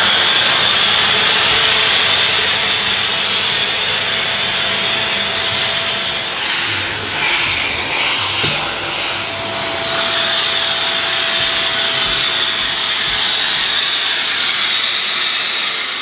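Dyson Ball Animal Multifloor upright vacuum cleaner running, with a cleaning tool fitted directly to the end of its hose and used on the stairs. It makes a steady, loud suction noise with a high whine, which shifts a little as the tool moves.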